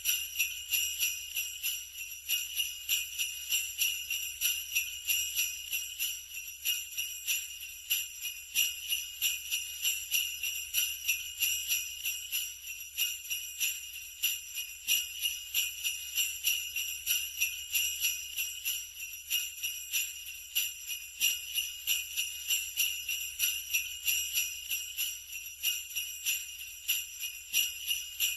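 Sleigh bells shaken steadily, a continuous bright jingling that pulses in an even rhythm several times a second.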